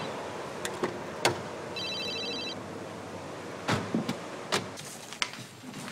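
Doors of a Mazda car being shut, several solid knocks and thuds, and a short electronic telephone ring trill about two seconds in.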